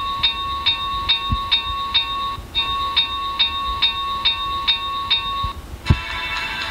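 A recorded bell ringing, struck a little more than twice a second with a short break partway, played back by the Arduino-based DCC sound decoder from its micro SD card. It stops near the end, and after a thump the decoder's next audio track starts.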